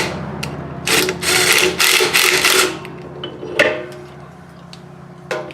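Small impact wrench hammering in three short bursts as it drives the bolts on an electric motor's pulley, then a few sharp metallic clanks.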